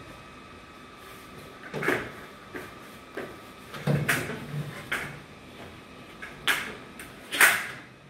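Metal ceiling air-vent grille being handled and worked loose by hand: a handful of short clacks and scrapes, about one a second, the loudest near the end.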